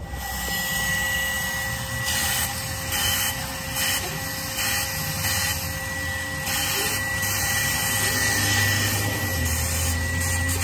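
Shop vacuum running with a steady whine over a rushing hiss, its hose sucking loose debris out of a spark plug tube.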